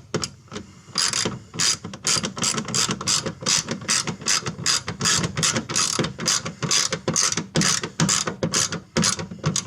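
Ratchet wrench clicking in quick repeated strokes, about three clicks a second, as it snugs down the taillight's mounting nuts.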